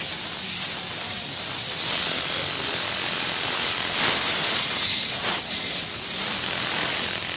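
Kansai Special multi-needle industrial sewing machine running as fabric is fed through it, with a steady high whine from about two seconds in, over a constant hiss.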